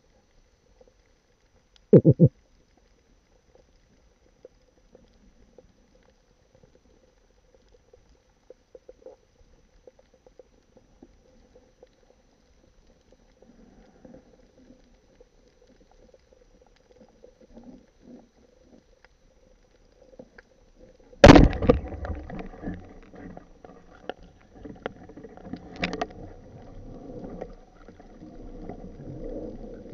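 Underwater: a wooden band-powered speargun firing with a sharp loud crack about two-thirds of the way through, followed by several seconds of rattling, knocking and scraping as the gun is handled, with one more sharp click. Earlier there is faint crackling and a short loud knock a couple of seconds in.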